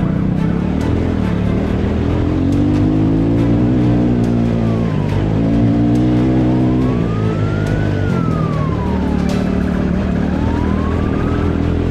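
Dirt bike engine revving up and dropping back several times as the bike is ridden hard across rough ground. Behind it, fainter, a police siren wails in slow rising and falling sweeps.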